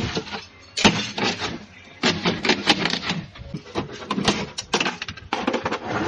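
Rapid, irregular knocks and clatter of metal being struck as a refrigerator is broken up for scrap.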